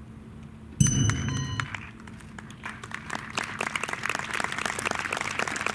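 A last struck, ringing note of the dance music about a second in, fading within a second. Then a small audience's applause builds and continues.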